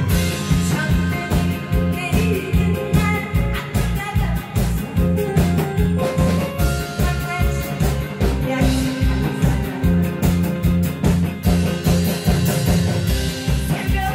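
A woman singing into a microphone over loud amplified music with a steady drum beat and bass.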